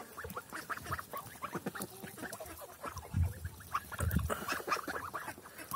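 Young Linda geese feeding together on a zucchini: a run of short, soft calls from the flock over quick pecking clicks as they bite into the flesh. Two low thuds about three and four seconds in.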